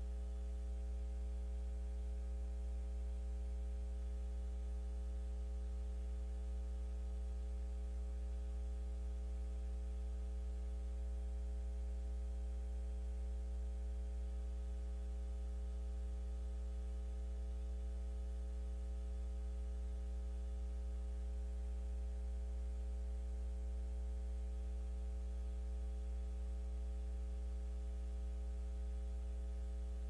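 Steady electrical mains hum with a ladder of buzzy overtones and a faint hiss of static, unchanging throughout, on a nest camera's audio feed.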